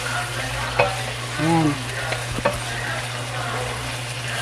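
Chicken pieces sizzling as they sauté in a nonstick frying pan, stirred with a wooden spatula that knocks against the pan a few times.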